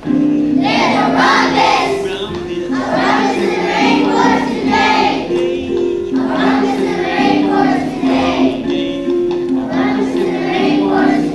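A group of children singing a song together over a musical backing track.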